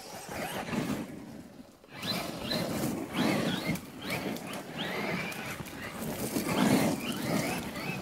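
Traxxas Maxx RC monster truck driven hard on gravel: its brushless electric motor whines up and down in pitch through several bursts of throttle, over the gritty noise of the tyres on gravel.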